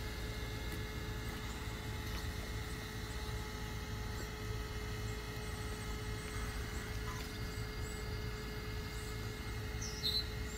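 A steady low hum and rumble with an unchanging tone, and a short high chirp about ten seconds in.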